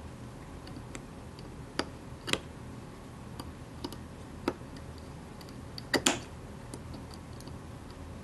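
Scattered light clicks and taps of a screwdriver and small metal pistol parts being handled while the grip panel screws of a 1911-style CO2 air pistol are fitted. The loudest is a quick double click about six seconds in.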